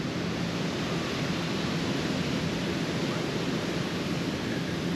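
Ocean surf washing onto a sandy beach, a steady even rush of noise.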